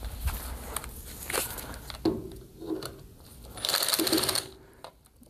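Clicks and small rattles of a screw being undone and TV parts being handled, with a brief loud rasping burst about three and a half seconds in.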